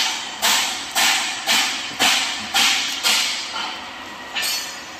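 Plastic bag rustling as hands handle bagged spare parts, in about eight quick rustles roughly two a second, with one more after a short pause near the end.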